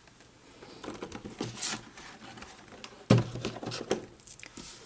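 Handling noise in a small room: scattered rustles and light knocks as objects are moved about, with one louder thump about three seconds in.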